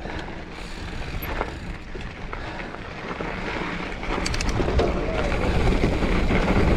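Giant Fathom mountain bike descending a rocky trail at speed: tyres rolling and knocking over rocks, the bike rattling, with wind noise on the mic. It gets louder as speed builds.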